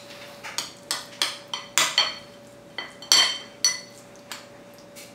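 Metal utensils clinking and scraping against a ceramic bowl while mixing mashed avocado into guacamole: irregular clinks, about three a second, some ringing briefly.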